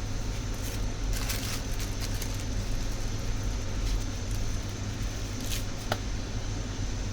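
Steady background hum and hiss, with a few faint clicks and soft scraping or squishing noises in the middle.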